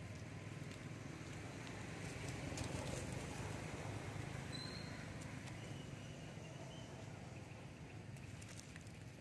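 Faint outdoor ambience: a steady low rumble with light rustling and patter of dry leaves as long-tailed macaques move over leaf litter. A brief faint high chirp about four and a half seconds in.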